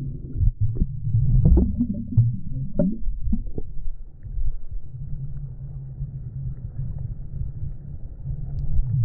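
Muffled low rumble and sloshing of shallow water picked up by a GoPro Hero 10's microphone as the camera dips below the surface, with several short knocks in the first few seconds.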